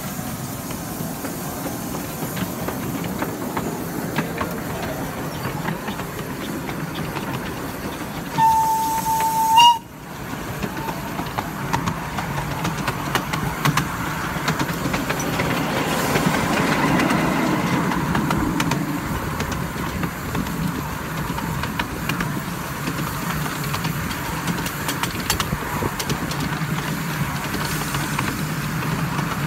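Miniature steam locomotive on 7¼-inch gauge track, running with a steady rumble and hiss while the wheels click over the rails. About eight seconds in, a whistle sounds loudly on one steady note for just over a second.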